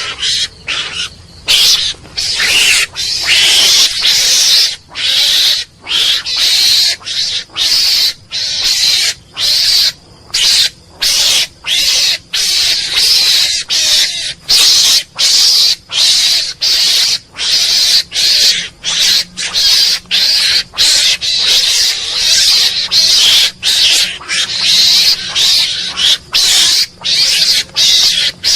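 Mongoose calling over and over: high, raspy calls repeated about twice a second with short breaks between them.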